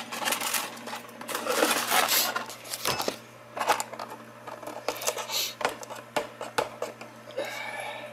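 Handling noises on a workbench: scattered clicks, knocks and short rustles as engine parts, packaging and the camera are moved about, over a faint steady hum.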